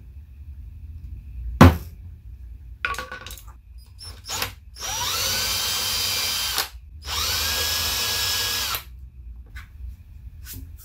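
Cordless drill boring into the telescope's wooden base board in two runs of about two seconds each, each spinning up quickly and then running steady. Before the drilling, one sharp hammer tap marks the spot for the hole.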